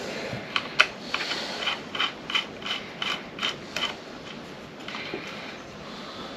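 Ratchet wrench clicking as a fastener is turned, a run of about ten clicks at roughly three a second that stops about four seconds in.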